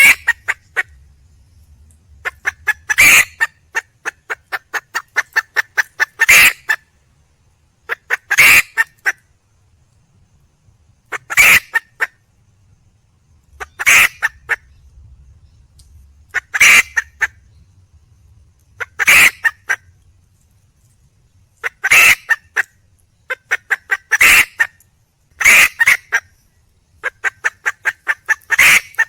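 Red junglefowl hen calling for a mate: bouts of quick short clucks that end in a louder note, repeated every two to three seconds.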